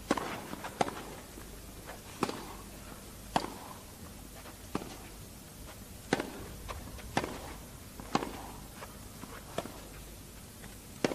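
Tennis rally: rackets striking the ball back and forth, about ten sharp pops spaced roughly a second apart, over a hushed crowd.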